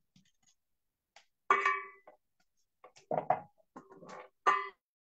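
A few sharp clinks and knocks, some with a brief ring, coming through a video call's microphone; the first, about one and a half seconds in, and the last, near the end, are the loudest.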